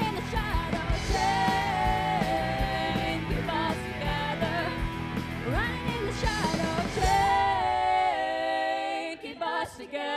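A live rock band plays with singing over drums, bass and guitar. About three-quarters of the way through, the drums and bass drop out and held notes remain, ending the song near the end.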